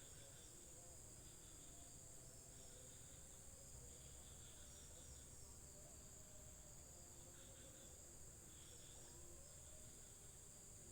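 Faint evening insect chorus: a steady high-pitched drone with irregular bursts of cricket chirping over it.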